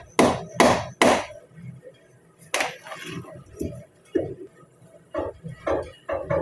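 Hammer blows on metal as a 2008 Ram 2500's front wheel bearing hub assembly is knocked into place on the steering knuckle. Three hard strikes in the first second, another about two and a half seconds in, then several lighter taps.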